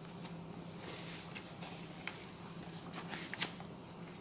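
Pages of a thick screw-post-bound book being turned by hand: soft paper rustling with a few light ticks, over a steady low hum.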